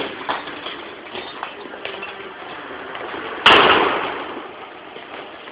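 A single loud smack of a punch landing, about three and a half seconds in, fading out over about a second, with fainter knocks and shuffles before it.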